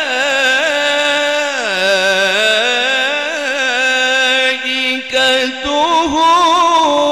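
A man reciting the Quran in the melodic mujawwad style, amplified through a handheld microphone. He holds long ornamented notes that dip in pitch about a second and a half in, breaks briefly a little past the middle, and climbs higher near the end.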